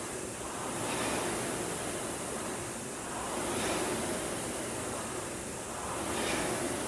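Concept2 indoor rower's air-resistance flywheel whooshing in time with the strokes. It swells with each drive and fades on the recovery, three swells about two and a half seconds apart, a steady pace of about 22 strokes a minute.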